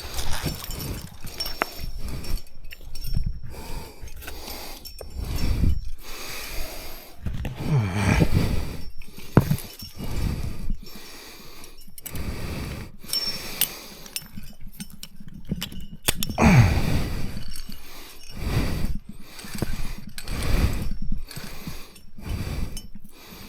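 Irregular knocks, clinks and rustling scrapes from someone clambering through bushes and over rock.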